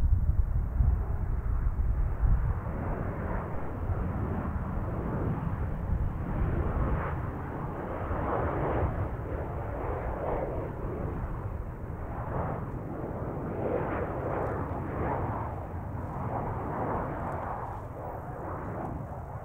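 Jet engines of a Boeing 737-800 airliner on final approach to landing: continuous engine noise that swells and fades unevenly, with a heavier low rumble in the first couple of seconds.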